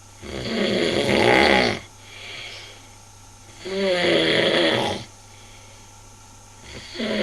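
A person snoring very loudly: three long, heavy snores about three seconds apart, with quieter breathing between them.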